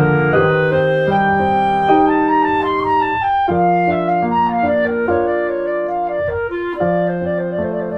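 Instrumental background music: a slow melody of held notes that steps from pitch to pitch.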